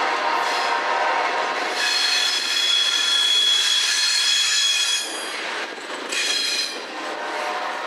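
Kansas City Southern freight cars rolling past on steel wheels, with a steady high-pitched wheel squeal from about two seconds in until about five seconds, and a shorter squeal about six seconds in.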